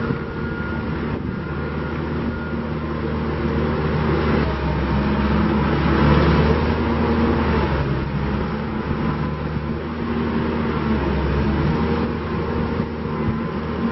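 Gehl RT250 tracked skid steer's diesel engine running steadily, its loudness swelling a little around the middle.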